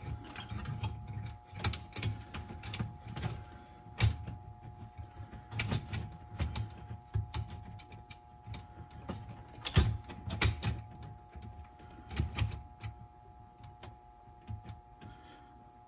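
Hands working on a Sony TC-WR950 cassette deck's tape transport and wiring: irregular small clicks and knocks of plastic and metal parts, with soft low thumps and rustling, and a few sharper knocks.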